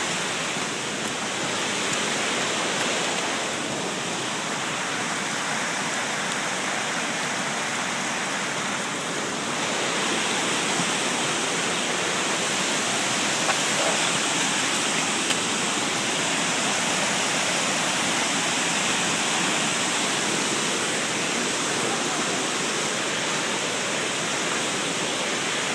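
Big waterfall's steady rush of falling water, close by.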